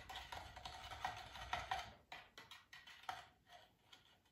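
Metal teaspoon stirring in a stemmed glass, clinking lightly against the glass in quick irregular ticks that grow sparser after about two seconds, as baking soda is mixed in to dissolve.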